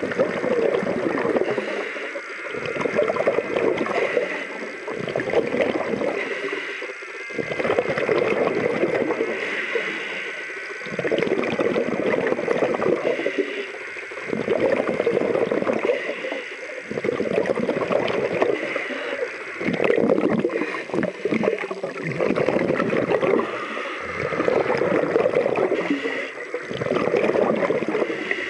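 Scuba diver breathing through a regulator underwater: a regular cycle, about every three seconds, of inhaling and then exhaling a rush of bubbles.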